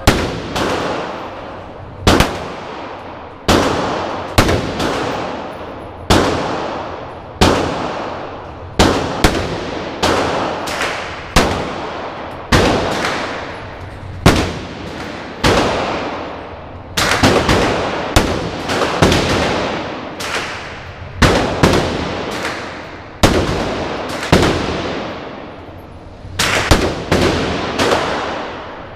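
Glock 9mm pistol shots fired one at a time in an indoor shooting range, about one a second with a few quick pairs. Each shot is loud and rings off the range walls as it dies away.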